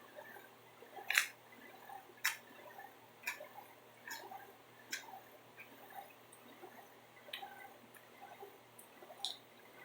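Chewing a mouthful of pizza: faint, irregular mouth clicks and small wet smacks, with two sharper clicks about a second and two seconds in.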